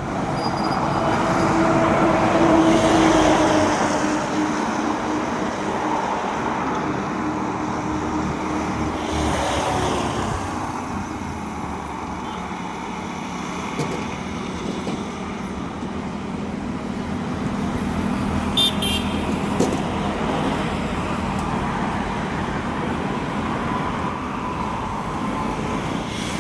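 Road traffic going by: a steady wash of traffic noise with engine hum, loudest a few seconds in as a vehicle passes, another passing a little before ten seconds in, and two short sharp clicks past the middle.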